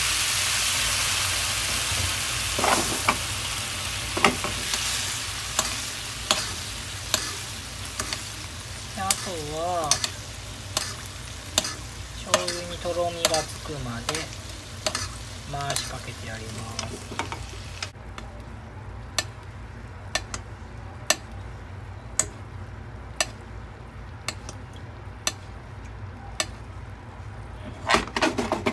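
Teriyaki sauce sizzling around a chicken thigh in a non-stick frying pan as it reduces and thickens, with utensils ticking against the pan as the sauce is spooned over. The sizzle weakens over time and its hiss drops off sharply about two-thirds of the way in, while the ticks carry on.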